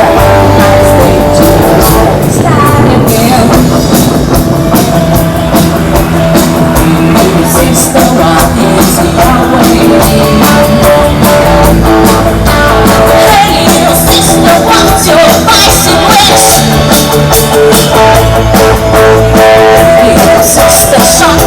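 Rock band playing loudly: guitar and drum kit, with a voice singing at times.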